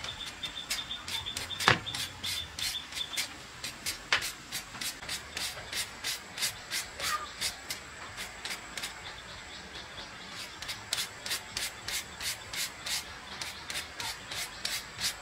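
Rhythmic hand scraping, about three quick strokes a second, with a couple of sharper knocks in the first few seconds.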